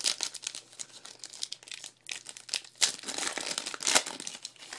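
Foil wrapper of a 2012 Panini Prestige football card pack crinkling and tearing as it is ripped open by hand, in a quick run of crackles with the loudest bursts about three and four seconds in.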